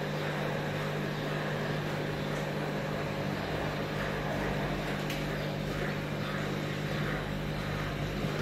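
Steady hum of aquarium pumps and aeration equipment: a constant low drone with a hiss of air and water over it.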